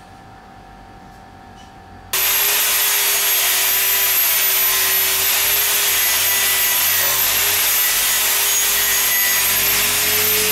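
Bosch angle grinder with an abrasive disc grinding the bevel of a steel knife blade: a steady high whine over a grinding hiss that starts suddenly about two seconds in, after a quiet stretch.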